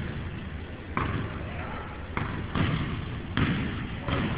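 Basketball bouncing, about five bounces at uneven spacing.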